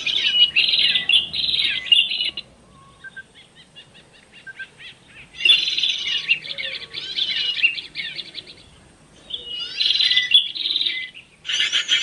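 A bird-trapping lure recording of noisy small birds ("suara burung ribut") played from a small handheld speaker: a dense chatter of many small birds chirping, in bursts of a second or two with short pauses between.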